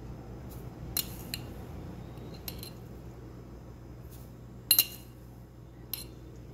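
Metal spoon clinking against the bowl and the fork resting in it while dried oregano is spooned in: a few scattered light clinks, the loudest a quick double clink a little before five seconds in, over a steady low hum.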